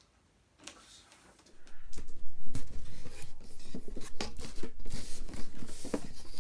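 Cardboard figure boxes being handled, with rubbing, scraping and small taps. It starts about a second and a half in.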